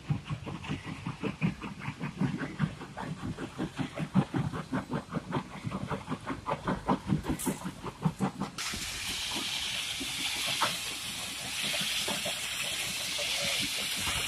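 Heavy plant machinery clattering, a fast uneven run of knocks several a second. About two-thirds of the way through it switches abruptly to a steady loud hiss.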